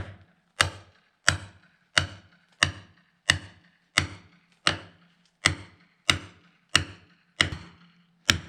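Steady metal-on-metal strikes, about one and a half a second, each ringing briefly. It is a hand tool hammered into the packed frozen dirt wedged up inside the dozer blade, chipping it loose.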